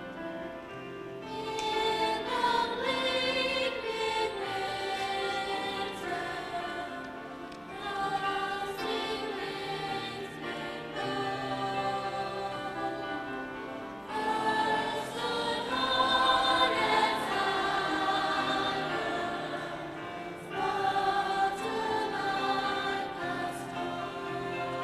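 High school concert choir singing in several voice parts, its phrases swelling louder about every six seconds.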